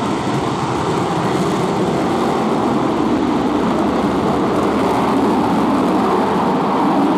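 Steady jet noise from a Lockheed F-35B Lightning II's Pratt & Whitney F135 turbofan engine as the jet flies its display, holding at an even level.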